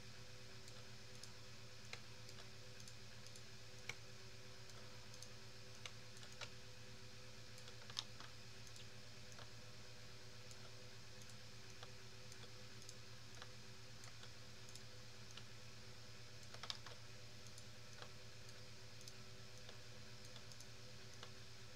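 Faint, sparse clicks of a computer mouse and keyboard, with a few louder ones scattered through, over a steady low electrical hum.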